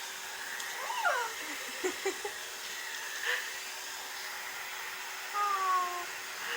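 A household appliance motor running with a steady hum, with a pet's short calls over it: a brief falling call about a second in and a longer falling call near the end.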